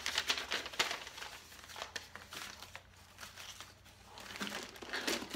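Paper and packing material rustling and crinkling as hands handle a sheet of paper and rummage in a cardboard box. It comes as irregular crackles, busiest in the first second and again near the end.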